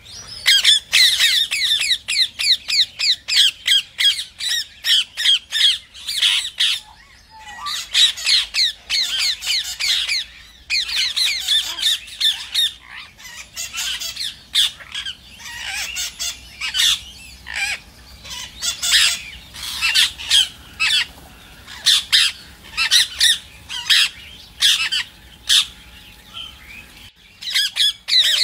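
Rose-ringed parakeets (Indian ringnecks) squawking: loud, shrill, rapidly repeated calls, several a second, in long runs broken by a few brief pauses.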